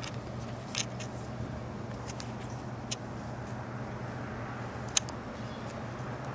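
A steady low hum with a few sharp clicks, the loudest about five seconds in.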